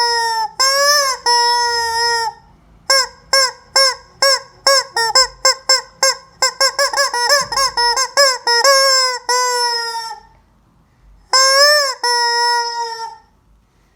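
Chicken screaming: loud, harsh held calls, then a fast run of short squawks about three a second, then long calls again and, after a short pause, a last burst of calls.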